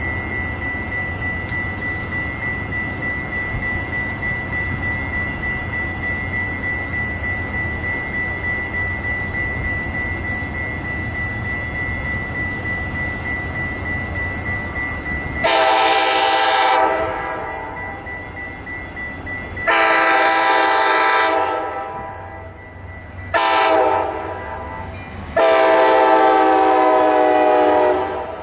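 Steady low rumble of a train with a thin steady high tone over it. About halfway in, a locomotive's multi-chime air horn sounds long, long, short, long, the standard warning signal for a grade crossing.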